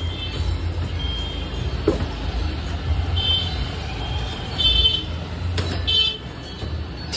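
Cardboard scooter box being pulled open by hand: flaps and packing tape tearing and rustling, with a few sharp clicks and three short high squeaks, over a steady low rumble.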